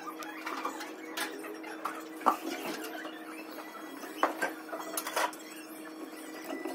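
Enamelled copper magnet wire clicking and rustling as it is handled and pressed into the slots of an electric motor stator during rewinding, with scattered light metallic taps and clinks against the steel stator and frame. A steady low hum runs underneath.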